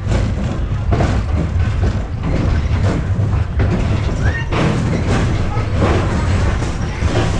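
Roller-coaster mine train rolling on its track into the station, a steady low rumble with irregular clacks and knocks from the wheels and cars.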